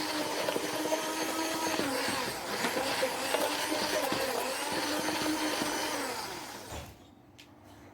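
Electric mixer running steadily as it beats cake batter. It winds down and stops about seven seconds in.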